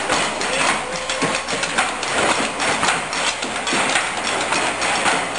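A roomful of people beating out a rhythm together on tables with cups and cutlery: a dense, steady clatter of knocks and clinks repeating in time.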